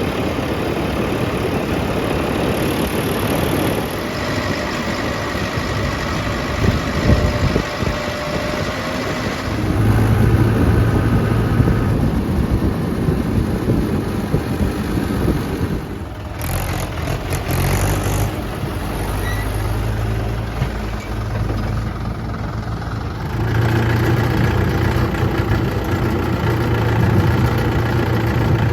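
Heavy diesel engines of a backhoe loader and farm tractors running at work. The engine sound changes abruptly several times.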